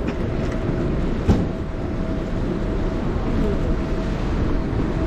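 Steady rumble of vehicle traffic with wind noise on the microphone, a faint constant hum over it, and a single sharp knock about a second in.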